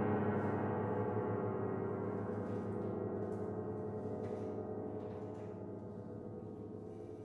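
Grand piano: a dense, low chord left to ring, dying away slowly and evenly, with a few faint clicks over the fading sound.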